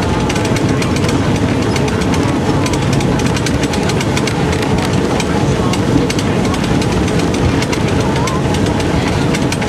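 Mount Washington Cog Railway train running on the track, a loud steady rumble with dense rapid clattering throughout.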